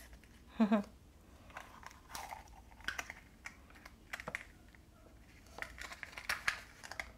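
Small clear plastic toy wrapper and toy can being handled: scattered light crinkles and clicks.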